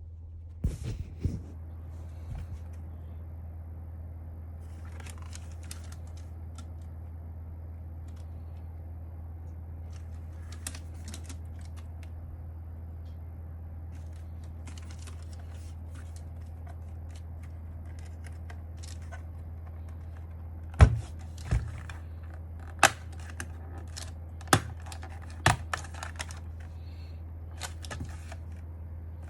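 Scattered clicks and taps from an Akko mechanical keyboard being handled, a few near the start and louder, more frequent ones in the last third, over a steady low hum.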